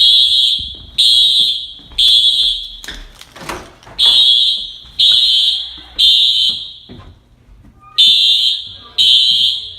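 Dormitory fire alarm sounding the temporal-three evacuation signal: three high-pitched beeps a second apart, a pause, then three more, repeating.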